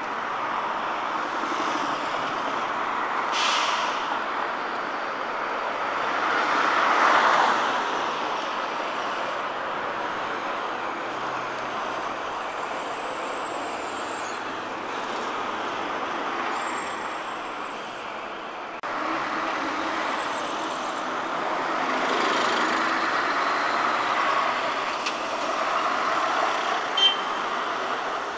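Busy city road traffic, mainly articulated lorries with cars and vans, pulling away and turning through a junction. The engine and tyre noise swells as vehicles pass close, loudest a few seconds in. There is a brief hiss a little before that, and a sharp click near the end.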